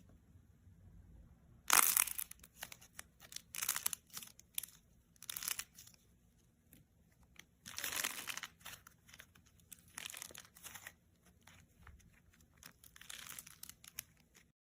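A crunchy craft material, slime or clay, being squeezed and cracked by hand, crackling and crinkling in about six irregular bursts of many tiny pops. The sound cuts off suddenly near the end.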